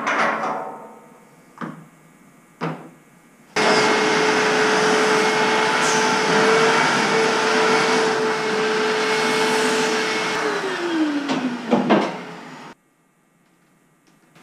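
A few knocks, then a vacuum cleaner switched on about three and a half seconds in, running steadily with a steady whine. Near the end the whine drops in pitch as the motor is switched off and winds down, and the sound then cuts off.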